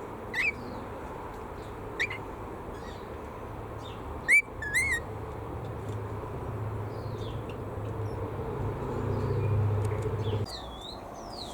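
Birds chirping and calling, with four loud rising calls in the first five seconds and fainter high chirps throughout. A low rumble builds underneath from about six seconds in and stops suddenly near the end.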